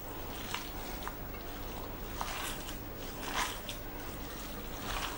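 A hand kneading and squishing a wet mixture of mashed foli fish, chopped onion, green chilli and coriander: soft, irregular squelching.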